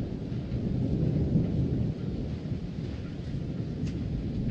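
Thunder rumbling low and continuously during a thunderstorm, with rain faintly audible underneath.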